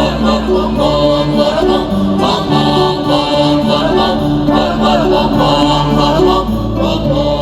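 Music with a group of voices singing together over held low notes.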